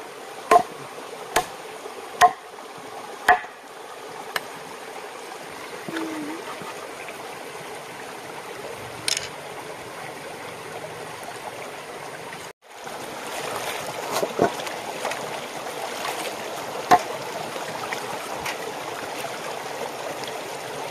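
Five sharp chops of a large knife cutting through a pig's leg on a wooden board, about one a second in the first few seconds, over the steady rush of a small stream. After a break about halfway, the stream is louder, with splashing as water is poured over greens in a pot.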